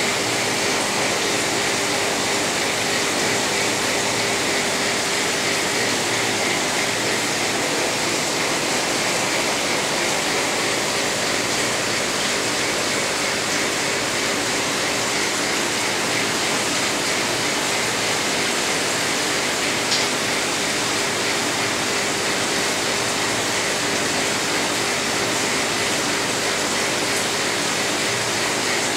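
Steady rushing water noise with a faint, even hum, from an aquarium's filtration and aeration running. One brief click about two-thirds of the way through.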